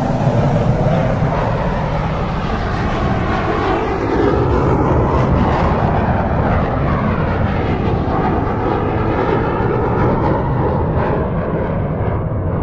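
Jet aircraft flying past: a loud, steady engine noise with sweeping, phasing tones in the middle, whose high end fades away over the second half as it passes.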